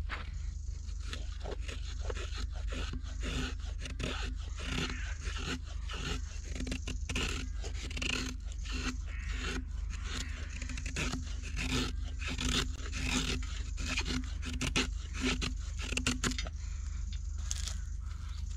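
Knife blade shaving curls down a dry stick to make a feather stick for fire-lighting: a long run of quick scraping strokes that stops about two seconds before the end.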